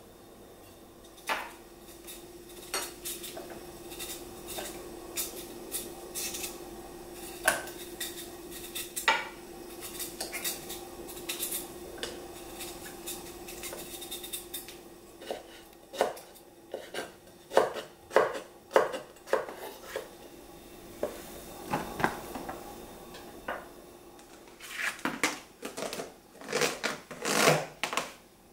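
Kitchen prep sounds: scattered clinks and taps of dishes and utensils, and a knife working broccoli stalks on a wooden cutting board, with clusters of quick knocks in the second half. A faint steady hum runs underneath and stops near the end.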